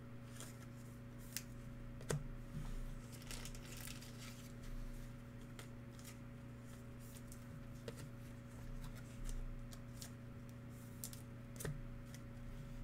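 Faint clicks and rustles of glossy trading cards being handled and flipped through by hand, with a sharper click about two seconds in and another near the end, over a steady low electrical hum.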